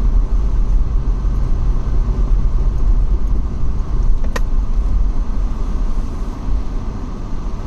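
A vehicle driving, with a steady low engine and road rumble and one sharp click about four seconds in.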